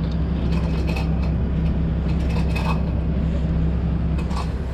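A diesel engine idling steadily, with faint metal clinks from the work now and then.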